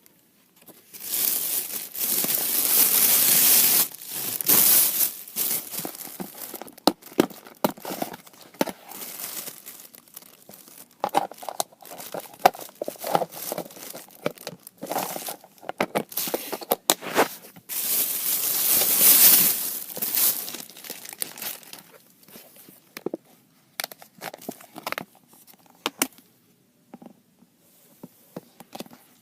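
Packaging being handled by hand, crinkled and torn, in long loud rustling stretches with sharp crackles and clicks in between.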